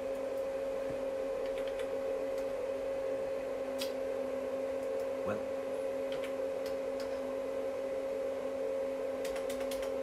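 A steady electrical hum from the CNC router's controller setup, holding one pitch, with a few light clicks of a computer mouse scattered through it and a quick run of clicks near the end.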